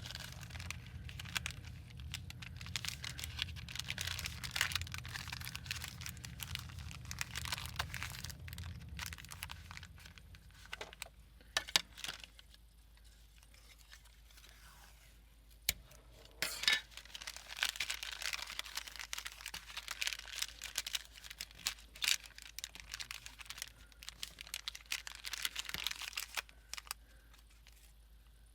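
Paper and packaging being handled up close: long stretches of crinkling, rustling and tearing, with a quieter spell of scattered clicks and taps in the middle. A low hum stops about a third of the way in.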